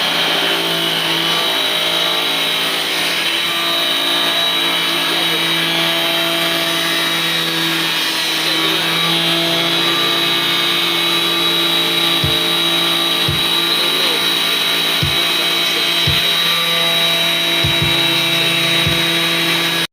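Power saw running steadily while ripping sheets of tin roofing, with a high steady whine over a lower drone. About six short low knocks come in the second half.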